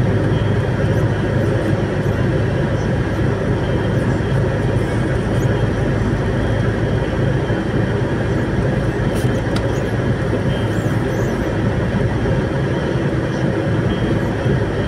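Steady engine and tyre noise of a vehicle driving along a highway, heard from inside its cab: a constant low rumble.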